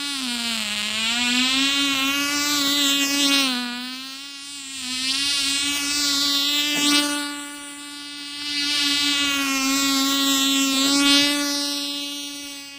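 Tiny Cox .020 two-stroke glow engine on a model airboat running at a high, steady whine, growing louder and softer about three times as the boat passes back and forth, its pitch bending slightly with each pass.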